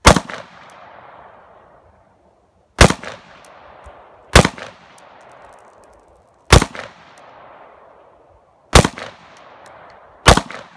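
Six single rifle shots from a semi-automatic AR-style rifle, spaced roughly one and a half to two seconds apart, each followed by a long echo that fades away.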